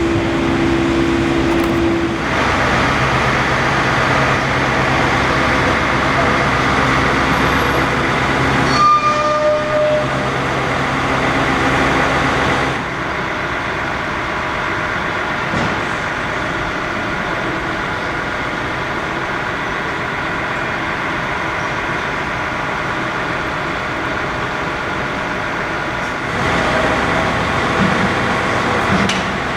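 Heavy diesel engines of construction vehicles running steadily, with a short high tone about nine seconds in and the engine note dropping back about thirteen seconds in.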